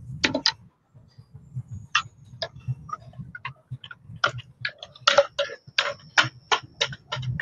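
Blender jug being knocked and tapped over a wok to shake out thick spice paste: a run of sharp clicks and knocks, scattered at first and then about two or three a second in the second half.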